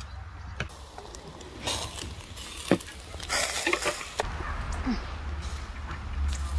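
Marinated chicken breast pieces being laid with metal tongs onto a hot charcoal grill grate: short bursts of sizzling and a few light metal clicks, over a low rumble.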